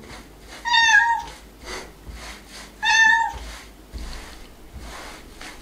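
A domestic cat meowing twice, two short meows about two seconds apart. She is demanding to be let out the front door.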